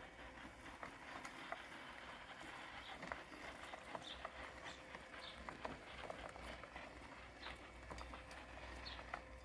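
Parkside robotic lawn mower running with a faint steady electric hum, with many scattered clicks and ticks as it moves through cluttered grass.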